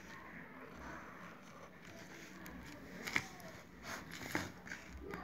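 Faint scratching of a marker pen drawing on paper, then several sharp clicks and taps in the second half, the loudest about three seconds in.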